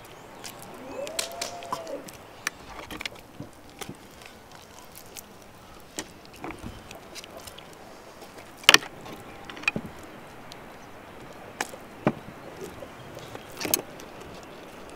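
Metal wire hooks clicking and tapping against an enamel bowl while marinated meat is handled and hooked onto them, with irregular sharp taps, the loudest about two-thirds of the way through.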